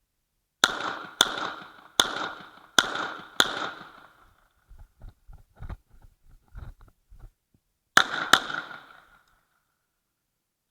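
Uzi Pro 9 mm pistol firing: five single shots spaced about half a second to a second apart, each with a ringing echo. After a pause with scattered low knocks comes a quick pair of shots.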